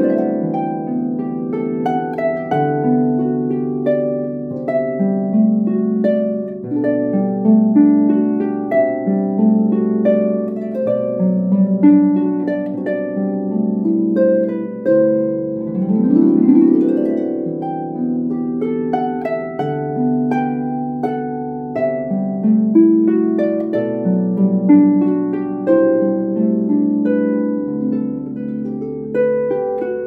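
Pedal harp played solo: many plucked notes ringing over one another above low bass notes, with a quick upward glissando sweep about halfway through.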